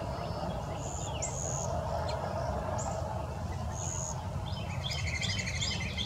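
Wild songbirds calling: short, high whistled notes repeat about every second and a half, and near the end a fast, chattering phrase of rapid notes. A steady low rumble runs underneath.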